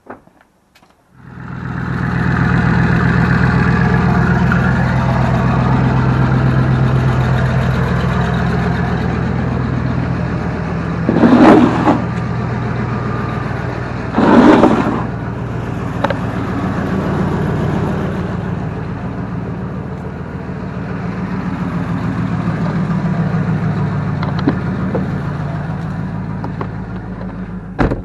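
Dodge Durango's turbocharged 4.7 L V8 starting about a second in and then running steadily, with two short, loud bursts around the middle.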